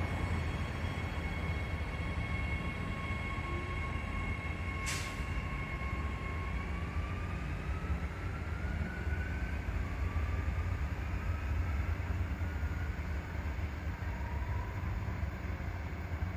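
Electric passenger train pulling away from the platform: a steady low rumble under a whine that climbs in pitch as it gathers speed. One brief sharp click about five seconds in.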